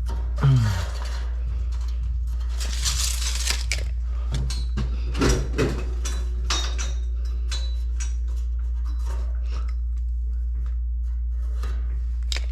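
Scattered metallic clinks, clicks and knocks, with a scrape about three seconds in, from handling steel studs, track and tools while laying out a door opening, over a steady low hum. The loudest is a knock with a short falling tone about half a second in.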